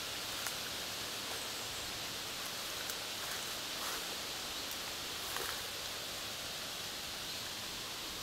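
Steady outdoor background hiss, likely a light breeze in the trees, with a few faint soft clicks.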